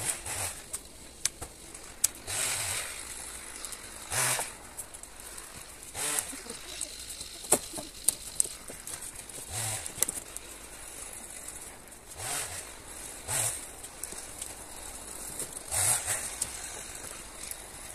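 Dry deadwood branches being dropped and stacked onto a loaded trailer: irregular bursts of rustling and scraping every second or two, with sharp knocks of wood on wood between them.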